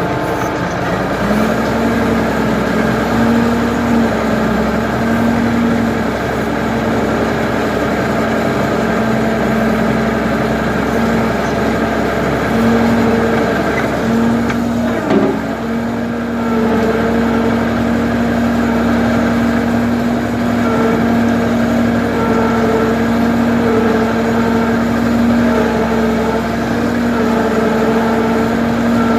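Ford 550 backhoe's engine running at a steady, even speed, with a single brief knock about halfway through.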